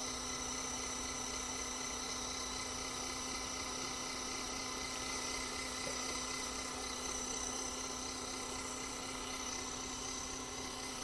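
Small electric suction pump running steadily, a constant hum with a high whine over it, drawing the dissolved residue out of an inkjet printer head's nozzles after a long soak in cleaning solution.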